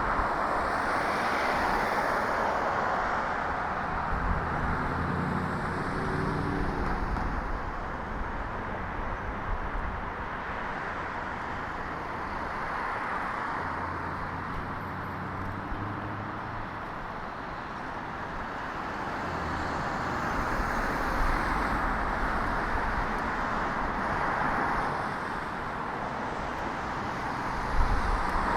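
Street traffic: cars passing with tyre noise that swells and fades. A lower engine hum is heard a few seconds in.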